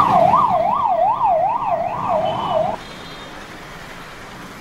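Electronic siren sweeping rapidly up and down in pitch, about two and a half sweeps a second, cutting off abruptly about three seconds in; a low steady background noise follows.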